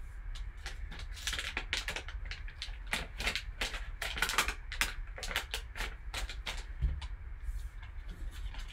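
Black foil pack wrapper crinkling and crackling as it is torn open and crumpled by gloved hands, a dense run of irregular short crackles that thins out toward the end.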